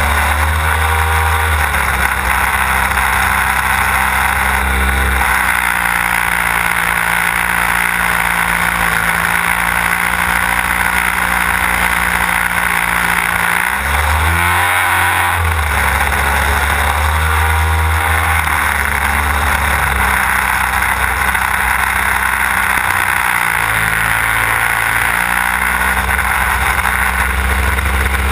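Desert Aircraft DA-150 twin-cylinder two-stroke gasoline engine on a 44% scale Giles 202 aerobatic model plane, heard close up on board, running under load with propeller and wind noise. Its pitch shifts up and down several times as the throttle is worked, including a quick swoop about halfway through.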